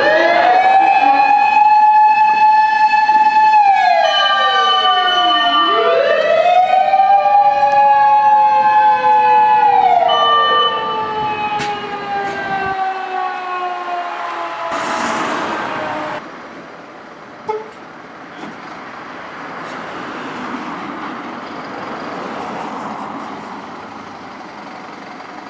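Fire rescue truck's motor siren winding up quickly and running down slowly in long wails, with a steady higher tone sounding in short stretches between them. About fifteen seconds in, a loud rush of noise comes and the siren stops, leaving steady road and engine noise.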